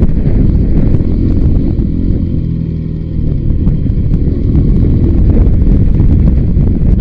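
Voge 300 Rally single-cylinder motorcycle engine running on a rough downhill trail, mixed with heavy wind buffeting on the microphone. For about a second near the middle the wind eases and the engine's even note comes through clearly.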